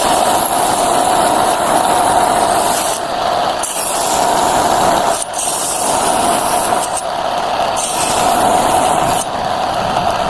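Small electric hobby saw running with a steady motor whine while its blade cuts wood, giving a loud high hiss. The hiss stops briefly about three seconds in, around seven seconds, and again near the end, while the whine carries on.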